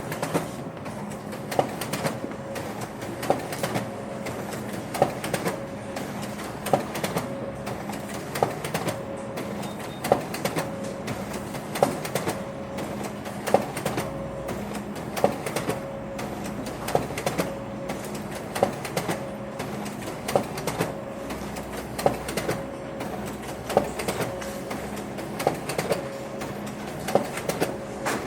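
Photocopier running, a steady mechanical hum with a sharp clack repeating evenly about every 1.7 seconds as it cycles through copies.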